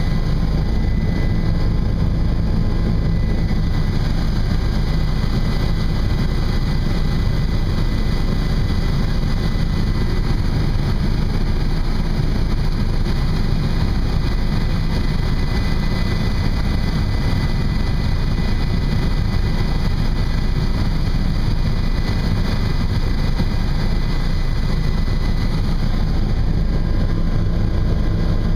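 Helicopter in flight heard from inside the cabin: a steady, loud drone of engine and rotor, with a thin steady whine above it.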